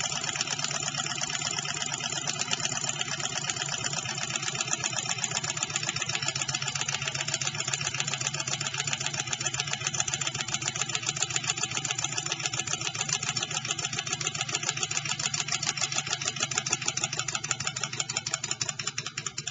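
Model Stirling hot-air engine running fast, its piston, displacer linkage and flywheel making a rapid, even mechanical clatter that fades near the end as the engine winds down.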